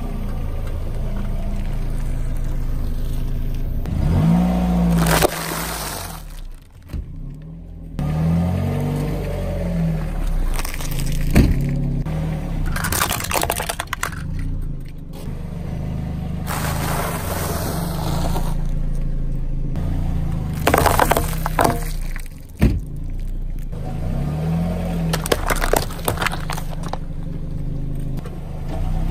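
A car's tyre rolls slowly over a series of objects on asphalt, crushing them one after another with crunching, sharp plastic cracks and wet squashing. Under it the car's engine runs with a steady low hum, rising and falling in pitch a few times as the car creeps forward.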